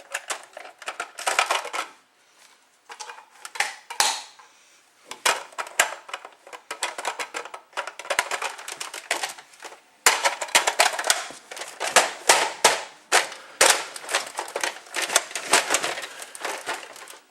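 Rapid, irregular clicking and clattering of hard objects being handled, in bursts broken by short pauses.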